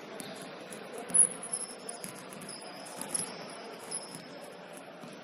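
Short, high-pitched squeaks of basketball shoes on a hardwood gym floor, the sharpest about a second in, over a low steady hum of the hall.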